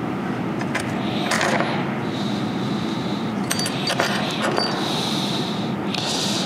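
Rustling of hands working a thin braided kite line, pulling fibres out of the braid to taper it, with a few light clicks, a cluster of them about three and a half seconds in.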